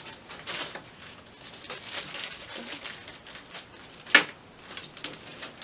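Small hardware parts and plastic packaging being handled: light rustling and clicking, with one sharp click about four seconds in.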